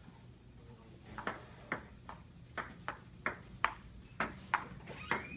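Table tennis rally: a ping-pong ball clicking off the paddles and the table, about ten sharp, evenly spaced clicks at two to three a second, beginning about a second in.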